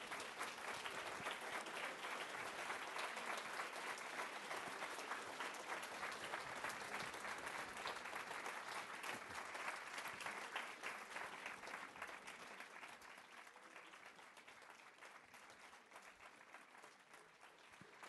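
Audience applauding: dense, steady clapping that fades gradually over the last several seconds.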